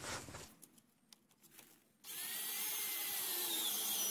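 Cordless drill driving a screw through the nailing flange of a vinyl J channel: a few light handling clicks, then about halfway in the drill starts and runs steadily with a high whine.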